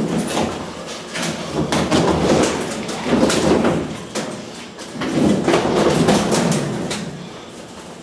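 Washing machine being shoved into a small hatchback's cargo area: its metal frame scraping and knocking repeatedly against the car as it slides in.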